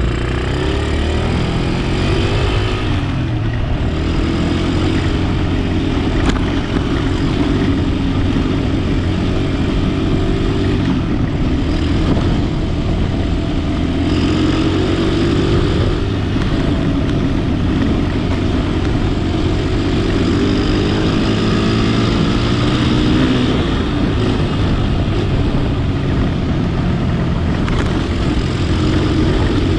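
Car engine and road noise while driving, steady throughout, with the engine pitch slowly rising and falling several times as the speed changes.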